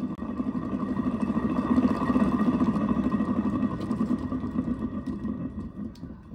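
Pulley assembly from a Wells-Index 847 milling machine spun by hand, whirring steadily on its bearings, which are due for replacement. The whir fades toward the end as the pulley slows.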